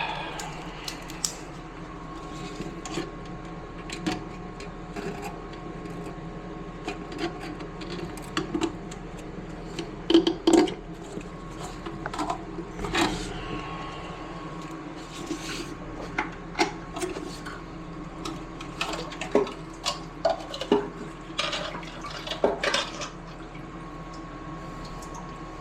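Irregular clinks, knocks and splashes of toilet tank parts being handled and pulled out in water, over a steady hum.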